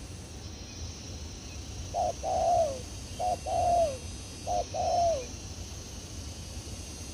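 Spotted dove cooing: three phrases a little over a second apart, each a quick double note followed by a longer coo that falls in pitch.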